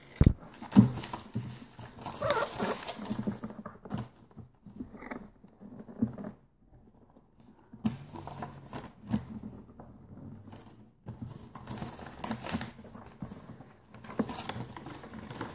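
A sheet of paper being handled, folded and creased by hand on a tabletop, making irregular rustling and crackling. There is a sharp knock just after the start.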